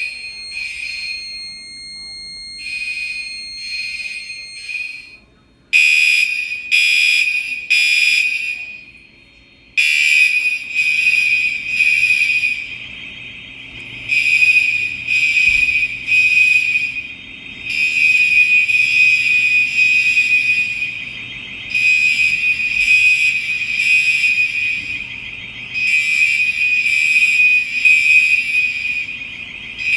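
STI door alarm sounding a piercing high-pitched electronic tone in pulses. It starts with short, quick pulses, gets louder after about six seconds, and then repeats as longer blasts of about two seconds each.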